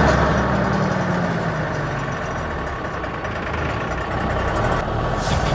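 Heavy truck's diesel engine running; its low hum weakens about two seconds in and picks up again near the end.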